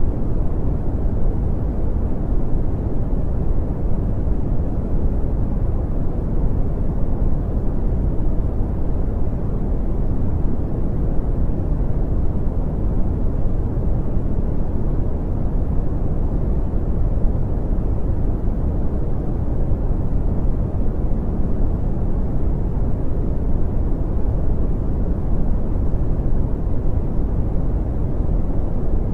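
Brown noise: a steady, deep rumbling hiss with most of its energy in the bass, fading off toward the highs, unchanging throughout.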